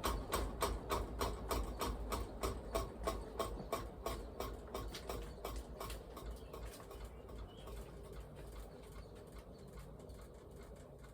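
Antique Diehl ceiling fan running with a steady low hum and a regular ticking, about three ticks a second, that grows fainter after about six seconds. The fan wobbles on a bent blade and hangs from a jerry-rigged J-hook.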